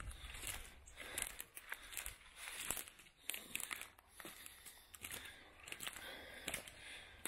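Footsteps crunching and rustling through dry leaf litter and twigs, an irregular run of sharp cracks and crackles.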